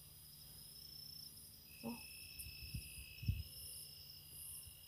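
Night insect chorus: steady, high cricket-like trilling with a faster pulsing above it. A couple of low thumps come about three seconds in, the second the loudest.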